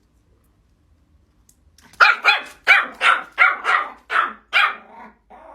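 A dog barking in a quick run of about ten sharp barks, roughly three a second. The barks start about two seconds in after a silent stretch and trail off quieter near the end.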